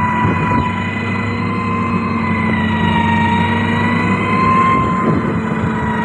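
Motor grader's diesel engine running under load with a steady high whine over its low rumble, as the blade pushes through a pile of broken stone.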